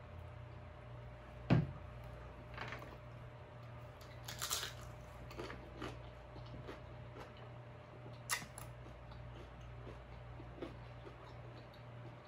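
Close-miked eating of shrimp ceviche with tostada chips: quiet chewing and mouth sounds, with a few sharp clicks and a low thump about a second and a half in.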